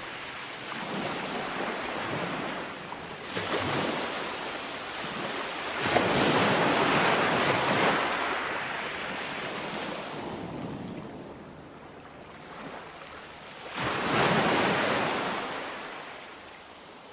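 Ocean waves breaking and washing in, a rushing noise that swells and ebbs with each wave, with bigger surges about six seconds in and again near the end before fading out.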